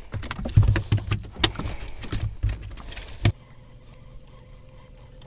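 Knocks, thumps and rattles of a freshly caught striped bass being brought aboard and handled in a small boat, with gear clattering, stopping suddenly about three seconds in. A faint steady hum follows.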